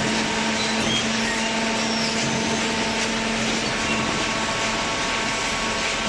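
Hydraulic corrugated-cardboard baler running: a steady mechanical drone with a constant low hum and a wash of machine noise.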